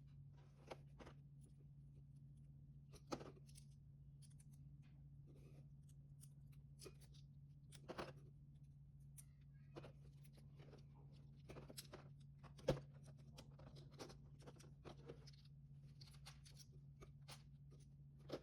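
Lego bricks being handled and snapped together: scattered small plastic clicks at irregular intervals, the loudest about three-quarters of the way through, over a low steady hum.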